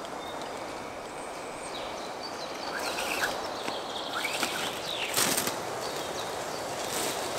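Steady outdoor hiss with a few short bird chirps, and a scrape and knock about five seconds in as a metal sheet is worked into the bark of a spruce trunk.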